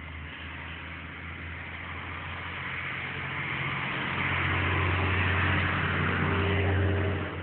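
Ursus 3502 tractor's diesel engine running steadily. It gets noticeably louder about four seconds in and drops back suddenly near the end.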